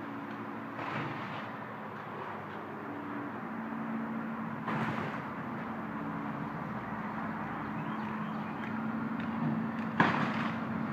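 Excavator's diesel engine running steadily while it demolishes a house, with crashes of breaking structure about one second and five seconds in and a sharp bang near the end, the loudest.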